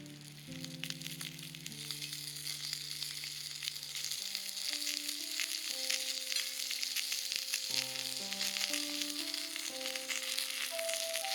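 Liver and heart sizzling as they cook over a campfire: a dense, fizzing crackle that grows louder over the first few seconds.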